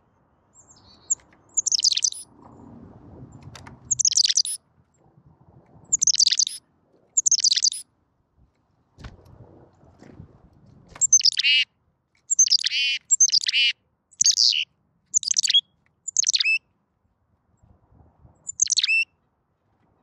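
Carolina chickadee calling: about a dozen short, high notes, each a quick drop in pitch, coming at irregular intervals and more closely bunched in the second half.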